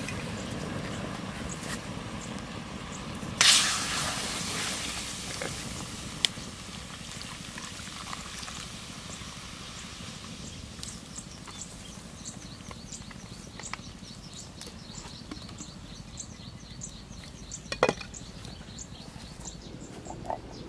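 Liquid poured from a plastic bottle into a clay pot holding a whole duck over a wood fire. It starts with a loud splash about three seconds in that fades to a quieter pouring. A few sharp clicks and, in the second half, a faint high chirping repeat.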